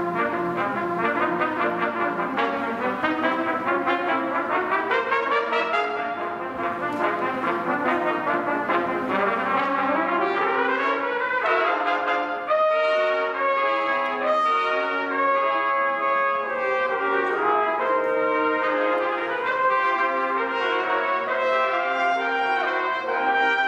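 A small live brass ensemble with trumpets playing together in parts: held chords with a rising run a little before the middle, then shorter, separate notes in the second half.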